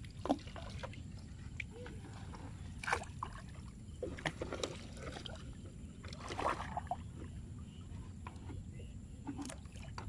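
Shallow river water splashing and sloshing around a wooden boat and a wading fisherman, with scattered short knocks and splashes over a steady low background noise.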